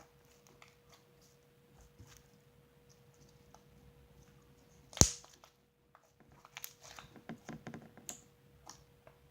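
Slime being kneaded and stretched by hand, giving faint sticky clicks and pops, with one sharp loud snap about five seconds in and a run of small clicks near the end.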